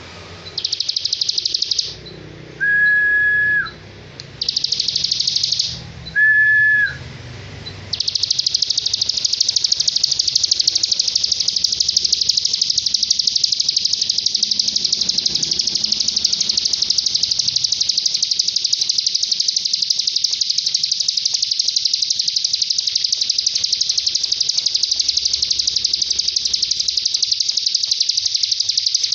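Cigun songbird's rapid, high 'tembakan' trill, used as a training song for other cage birds. It comes as two short trills, each followed by a single steady whistled note, then turns into one long unbroken trill from about eight seconds in.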